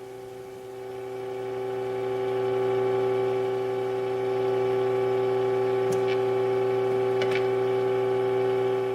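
Philco model 64 radio's speaker playing a steady test tone, the modulation from a signal generator used for alignment. It swells louder over the first few seconds, then holds. A couple of faint clicks come around six and seven seconds in.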